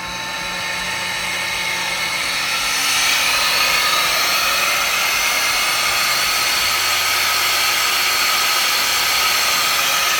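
Hydrovane HV11 rotary vane air compressor running, building up over the first few seconds to a steady loud rush of air over a hum as it starts pushing compressed air out the back.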